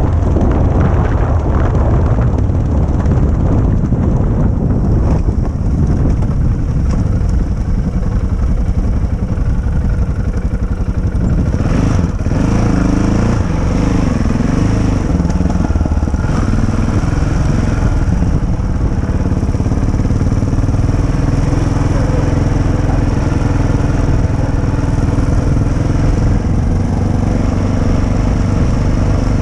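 Motorcycle engine running steadily under way, with a heavy low rumble over it. About halfway through, the engine's pitch rises and falls a few times before settling again.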